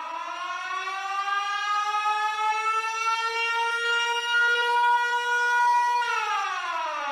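Siren winding up: its pitch rises slowly and levels off into a steady wail, then about six seconds in it starts to wind down, falling in pitch as it is stopped.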